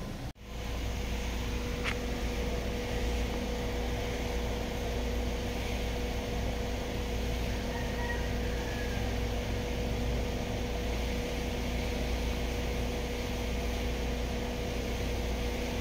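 Ford EcoSport engine idling steadily, heard from inside the cabin as a low, even hum. It drops out briefly just after the start, and there is one faint click about two seconds in.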